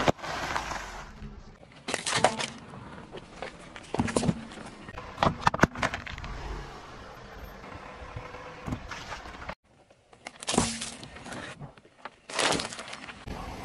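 Car tyres slowly rolling over snack bags and other packaging on asphalt: a string of separate crunching, crackling bursts as the packets and their contents are crushed, over the low rumble of the creeping car.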